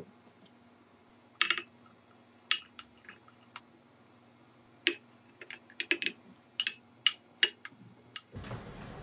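A spoon tapping and scraping against a ceramic dish and a clay pot as toppings are spooned onto rice: irregular sharp clicks and clinks. Near the end a steady hiss of a pot at the boil comes in.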